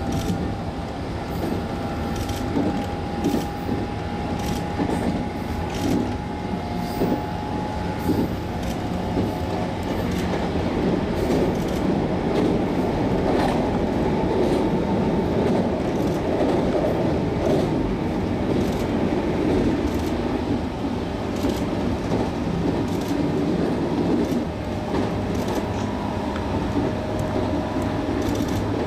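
Running noise of a 221 series electric train at speed, heard from on board: a steady rumble with wheels clicking over rail joints, and a thin whine during the first several seconds.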